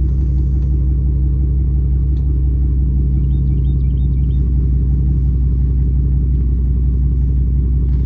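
Steady low drone of a motor vehicle running at an even speed, with no change in pitch. A few faint, short high chirps come about three to four seconds in.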